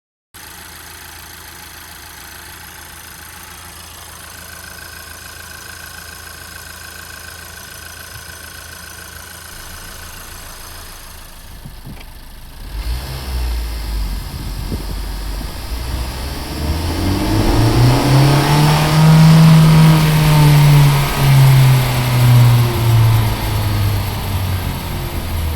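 Honda Civic Type R (FL5) with its 2.0-litre turbocharged four-cylinder, heard from a moving car. It is quiet and steady at first; about halfway through the engine note rises, peaks, then falls as the car speeds up and then coasts or engine-brakes. This is the condition in which its turbo wastegate actuator gives a metal-on-metal scraping rattle, easily mistaken for a pebble stuck in a brake caliper.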